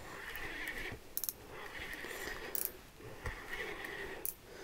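Fishing reel being cranked to bring in a hooked lake trout: a faint whirring in short spells, one turn after another, with a few sharp clicks.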